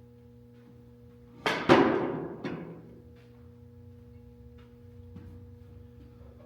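Two sharp knocks a fraction of a second apart, ringing as they decay, then a lighter knock: parts of a vinyl cutter stand being knocked together during assembly.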